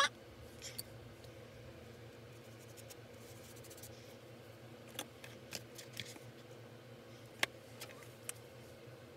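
A few small clicks and taps of makeup cases and tools being handled, scattered about half a second to a second apart from about five seconds in, over a faint steady hum.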